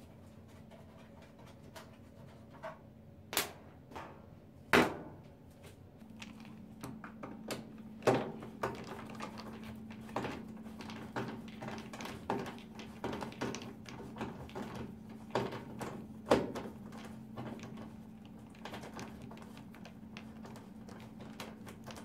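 Screwdriver and fingers working at the screw and plastic end cap of a Kenmore 80 Series top-loading washer's control console: a series of irregular sharp clicks and knocks, the loudest about five seconds in, then many smaller ones.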